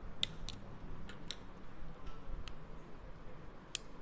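Sharp plastic clicks as a Samsung keypad phone's case is pried open with a screwdriver and fingers: about six separate snaps, the loudest near the end.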